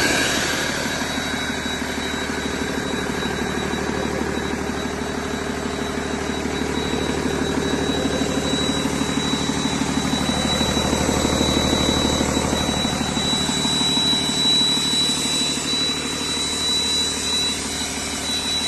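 2015 Cummins ISL9 8.9-litre inline-six diesel engine running steadily on a test run, with a thin, steady high whine over the engine sound.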